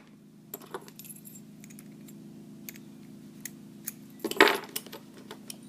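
All-brass round padlock being locked with its key: light metallic clicks and a jingle of keys, then one louder metal clack a little over four seconds in.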